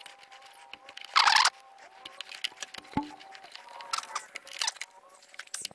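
Small clicks and rattles of wires, crimp connectors and a hand wire stripper being handled, with one short, louder rasp about a second in and a sharp tick about three seconds in.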